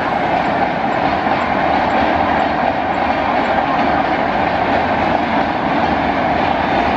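Rajdhani Express passenger train running past, a steady rumble and rush of its coaches on the track.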